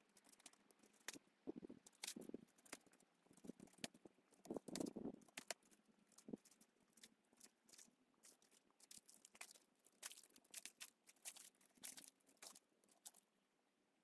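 Faint, irregular clicks and crackles, with a few soft rustling patches, strongest about two and five seconds in.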